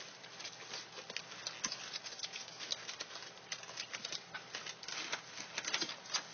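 Three-week-old pit bull puppies suckling from their nursing mother: a rapid, irregular run of wet smacking clicks.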